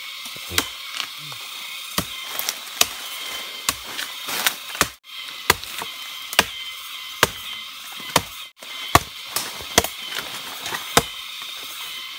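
A blade chopping wood or plant stems: a series of sharp strikes, roughly one a second, over a steady high-pitched background drone.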